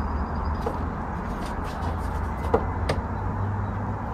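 A few light clicks and knocks from hands working on a car's plastic rear bumper and its wiring, the sharpest about two and a half seconds in, over a steady low rumble.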